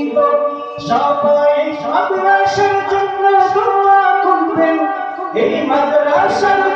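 Men's voices singing a Bengali Islamic gojol (devotional song) a cappella, in long held notes that step from pitch to pitch.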